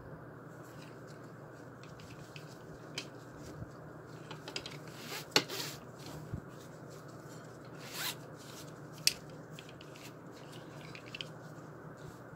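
A fabric dog collar with a plastic buckle and metal D-ring being turned over in the hands: scattered soft rustles and a few sharp clicks, the loudest a little before the middle and another about three quarters through.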